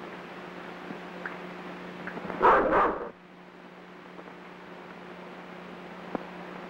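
German shepherd dog barking twice in quick succession about two and a half seconds in. A steady low hum and hiss run underneath.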